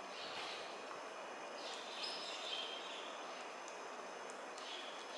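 Faint eating sounds of a person taking in and chewing spaghetti: a few soft slurps over a low, steady background hiss.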